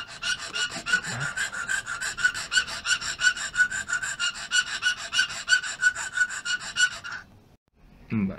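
Rat-tail file rasping back and forth in a hole in a bakelite pinball flipper part held in a vise, in rapid, even strokes with a slight ringing tone; the filing widens the worn oval hole so a bushing fits. The strokes stop about seven seconds in.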